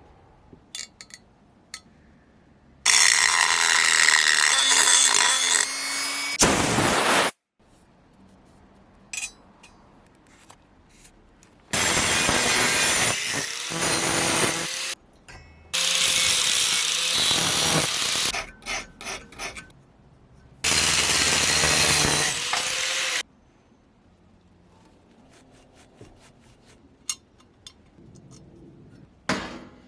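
A handheld power tool working on the aluminium engine case, run in four bursts of a few seconds each, with small clicks and clinks of handling in the quiet gaps between.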